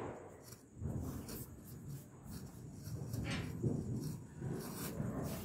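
A sparkler being lit at a small flame, catching with faint, scratchy fizzing and a few crackles. The tail of a firecracker bang fades out at the very start.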